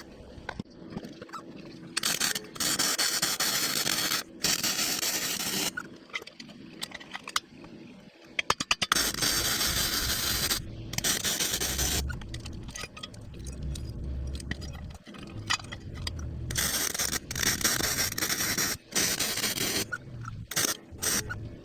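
Metal go-kart suspension parts being handled and fitted together by hand, with irregular scraping and knocking and a quick run of sharp clicks about eight seconds in.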